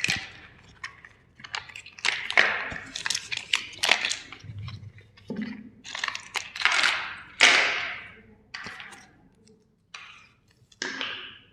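Plastic toy steam-engine trains being crushed, cracking and crunching in a string of sharp bursts about once a second, with a dull thud about halfway through.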